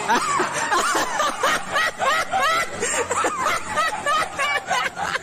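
People laughing hard, in quick repeated bursts of high-pitched giggling.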